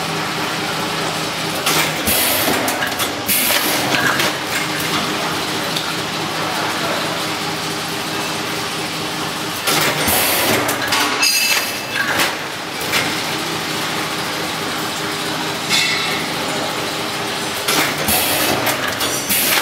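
Liquid packing machine running: a steady mechanical hum, broken every few seconds by clusters of hissing and clattering as its jaws and film feed work through a bag-forming cycle.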